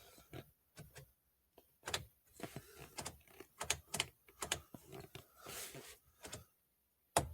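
Irregular light clicks and small knocks of parts and controls being handled in the Jeep's cab, with one sharper click near the end.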